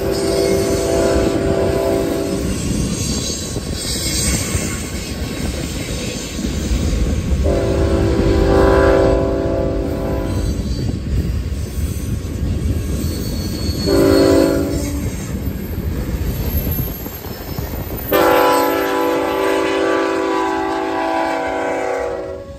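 Diesel freight locomotive air horn sounding the grade-crossing signal, two long blasts, one short and one long, over the steady rumble and clickety-clack of freight cars rolling past.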